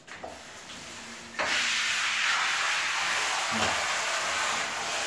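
A handheld shower spraying water over a wet dog's coat, rinsing the soap out. The water comes on suddenly about a second and a half in and then hisses steadily.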